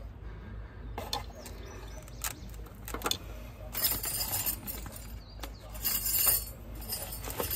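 Light metallic clicks and clinks of steel brake pad clips being handled and seated by hand on a truck's front brake caliper bracket, with a few short scraping rustles in the second half.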